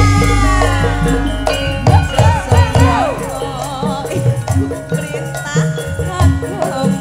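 Live campursari music: a female singer's ornamented, wavering vocal line over kendang drum and band accompaniment. A deep low stroke rings out at the start and fades over about two seconds.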